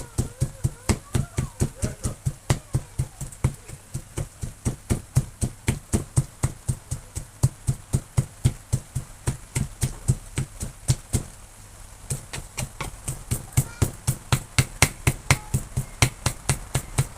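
Rapid, regular pounding at about four strokes a second: a plastic pestle crushing grilled peppers in a mortar. It stops briefly about eleven seconds in, then carries on.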